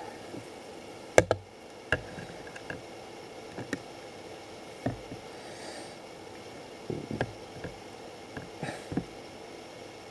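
Irregular light knocks and clicks on the camera body over a steady low hiss, the sharpest about a second in and a small cluster near the end.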